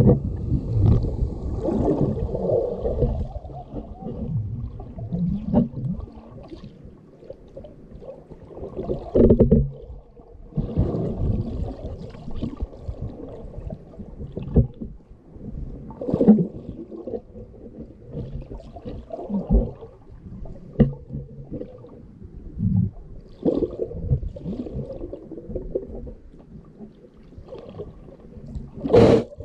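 Shallow seawater heard underwater: a muffled, low rumbling and sloshing that swells and ebbs in uneven surges as the water moves over the sandy bottom. A single sharp knock sounds near the end.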